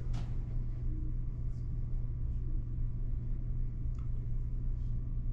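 Steady low hum of room tone, with a faint click about four seconds in.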